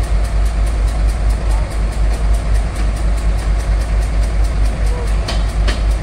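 Heavy diesel engine running at a steady speed, with a deep rumble and a rapid, even pulsing.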